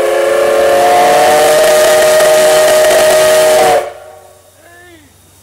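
Steam whistle of the C11 207 steam locomotive blowing one long, very loud blast for departure, several tones sounding together over heavy steam hiss, the pitch creeping up slightly. It cuts off abruptly about four seconds in.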